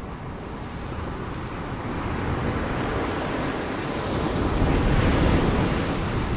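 Ocean surf: the rushing noise of a wave building to a peak about two-thirds of the way through, then easing off.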